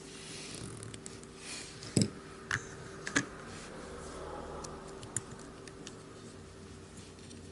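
Small hard clicks and taps of a Kizer T1 folding knife's parts and a Torx driver being handled as the knife is put back together, with a few sharper clicks around two to three seconds in.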